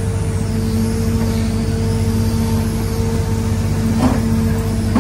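Excavator's diesel engine running steadily under hydraulic load, heard from the cab, with a steady hum. A short knock about four seconds in as the bucket dumps demolition debris into the steel dump truck bed.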